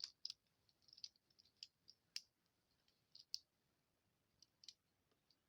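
Butterfly knife (balisong) being flipped and handled: faint, irregular clicks as its handles knock together, about a dozen over a few seconds, thinning out near the end.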